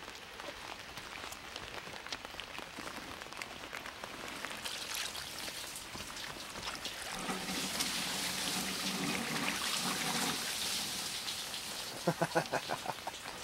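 Rain falling, with many individual drops ticking close by. It grows heavier for a few seconds about halfway through, then eases a little.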